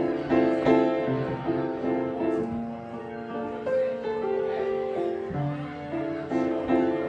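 A keyboard-style instrument patch playing chords over a low bass note, the upper notes repeated in a quick pulsing pattern; the bass note moves about five seconds in. It is a newly designed sound patch being tried out.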